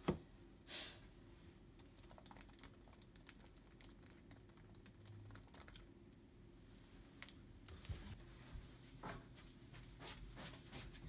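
Fingers typing on a laptop keyboard: a run of light, irregular key clicks with a few louder taps.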